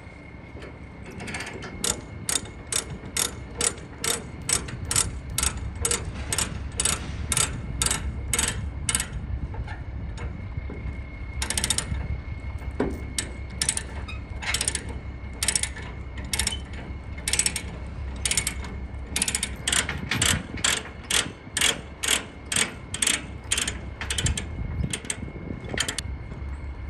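Ratchet chain binder being cranked to tighten a transport chain on a trailer load: a steady series of sharp clicks, about two a second, pausing for a couple of seconds about ten seconds in and briefly a few more times.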